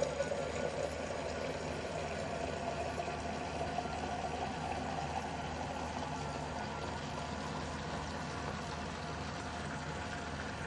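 Tap water pouring steadily into a metal gooseneck kettle as it fills, with a faint tone in the splash that climbs slowly over the first few seconds.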